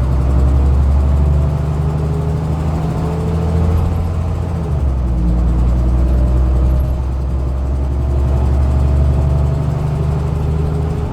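Dennis Dominator double-decker bus under way, its diesel engine rumbling with a whine that rises in pitch as it pulls. The note drops at a gear change about halfway through, then climbs again.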